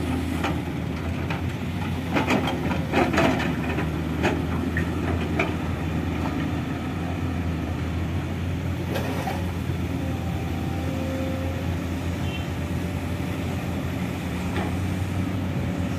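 Diesel truck engines idling steadily, a low, even hum. A few sharp knocks come in the first few seconds and once more around the middle.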